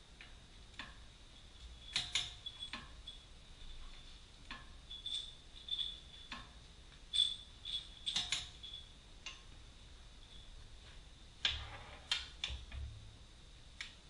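Hand tools clicking and clinking against the metal of a car's front wheel hub and brake assembly, in irregular sharp ticks with a brief metallic ring, and a couple of heavier knocks near the end.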